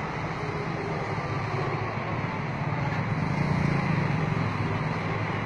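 Steady low engine hum, as of a vehicle idling, growing slightly louder about three seconds in and then easing back.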